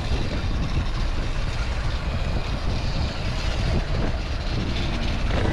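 Steady, fluttering wind rumble on the microphone with road noise, from riding an e-bike.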